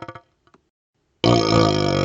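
Burps blown through a hollow vacuum extension tube, which gives them a resonant, horn-like drone. A crackling burp trails off at the start, then after about a second of silence a loud new burp starts suddenly and carries on.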